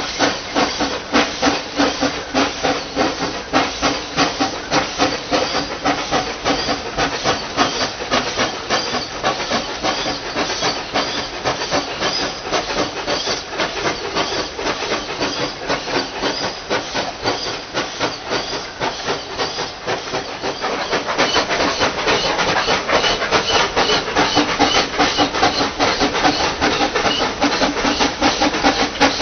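Two-foot-gauge steam locomotives hauling a train of wagons, their exhaust chuffing in a rapid, even beat with steam hiss. From about 21 seconds in the chuffing is louder and closer.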